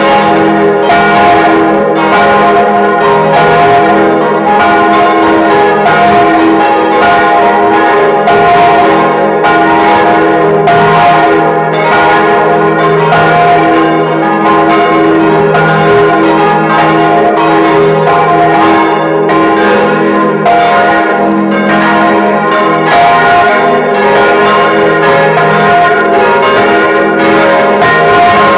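Church bells cast by the Causard foundry of Colmar, tuned to F, A-flat, B-flat and C, swinging and ringing together heard close up inside the belfry. They make a loud, continuous peal of overlapping strikes that never pauses.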